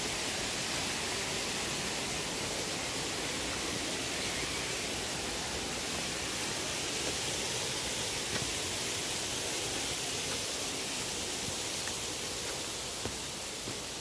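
A steady, even rushing hiss with no tone or rhythm, like running water or wind in trees, with faint footsteps on the leaf-strewn dirt trail.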